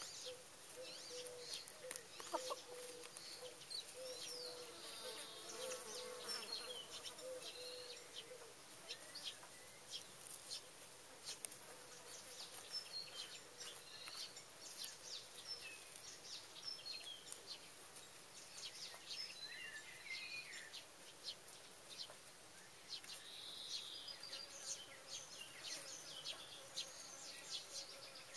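Faint sounds of hens foraging in a chicken run. For about the first eight seconds an insect buzzes with a steady, slightly wavering hum. Short soft clicks come throughout as the hens peck and scratch, and small birds chirp now and then.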